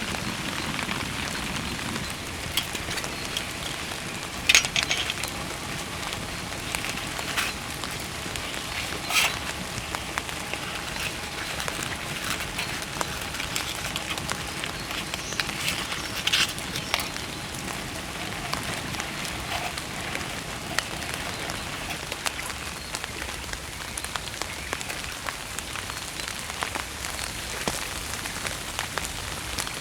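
Steady rain falling, with scattered louder drop impacts, the strongest about four and a half, nine and sixteen seconds in.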